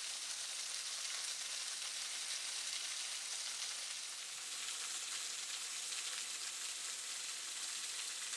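Waterfall: a steady, even hiss of falling water.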